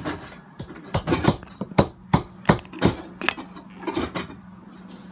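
Cooked mud crab shell being cracked open: a run of sharp cracks and crunches, about ten over three seconds, with one last loud crack at the end.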